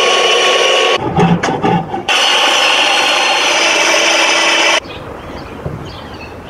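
Circular saw in a saw bench cutting through timber, in two long, steady stretches broken about a second in by a second of knocks and rubbing. The saw cuts off abruptly about five seconds in, leaving a quieter rustle.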